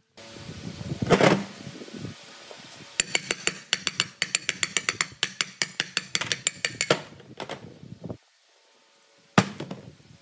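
Steel hammer tapping rapidly on a rusty electric motor's cast end shield, several ringing metallic strikes a second, to knock it off the rotor's bearing. A single louder knock comes about a second in, and two more lone knocks follow near the end.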